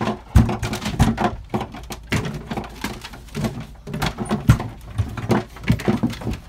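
Irregular thumps and knocks, about one or two a second, from people scrambling about a small room with plastic Nerf blasters.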